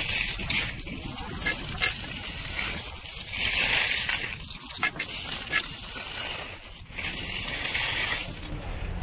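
Skis hissing and scraping over packed snow on a downhill run, swelling in surges with a few sharp clicks, over a low rumble of wind on the microphone. The hiss stops near the end.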